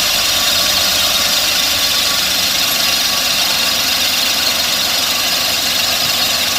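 Air-conditioner compressor running steadily with an abnormal noise.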